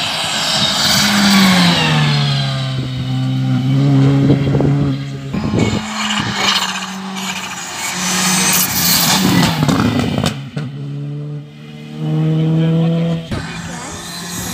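Rally car engine coming closer along the stage, revving hard and lifting off again and again as it changes gear. Its pitch drops, holds, then climbs and falls several times, with a brief lift about eleven seconds in.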